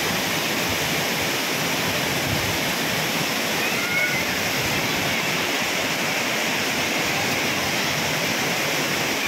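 Water pouring down a wide concrete spillway waterfall and churning in the shallow pool below: a steady, unbroken rush.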